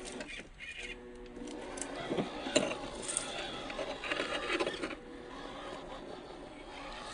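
Small electric motor and gearbox of a 1/18-scale RC crawler truck whining on and off as it climbs over rock, with the tyres scraping and clicking on the stone.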